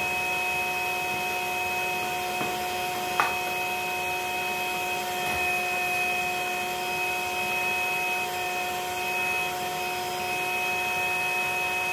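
Bee vacuum motor running steadily with a constant whine, with one short knock about three seconds in.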